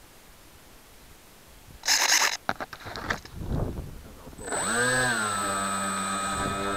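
A burst of knocks and rustling from the model being handled, then about four and a half seconds in an RC model's electric motor and propeller spin up and run at a steady pitch.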